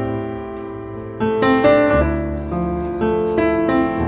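Background piano music: struck notes and chords that ring and fade, with a new note coming in every half second or so.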